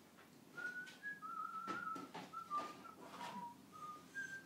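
A person whistling a short tune of about eight pure notes, mostly drifting downward with a higher note near the end, with a few light knocks in between.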